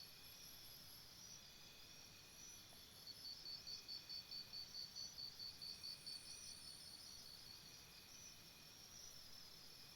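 Faint jungle insect chorus: several insects chirping in overlapping trains of high pulses, the strongest repeating about three times a second, with a brief high buzz in the middle.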